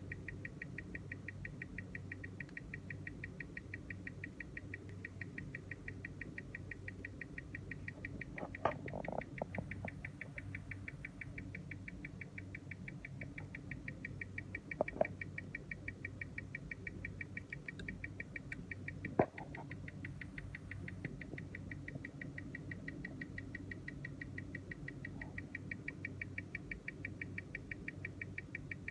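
Rapid, perfectly even ticking of a Tissot Powermatic 80 automatic watch movement on a timegrapher, about six beats a second, over a steady low hum. The beat is even, tick and tock spaced alike: the timegrapher shows a beat error of half a millisecond or less. A few louder single knocks come in around the middle.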